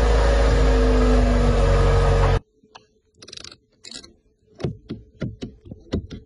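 Cadillac XT6 engine running steadily at the tailpipe, a loud low rumble that cuts off abruptly about two and a half seconds in. Then a quiet cabin with a quick run of sharp clicks from the console's rotary infotainment controller being turned and pressed.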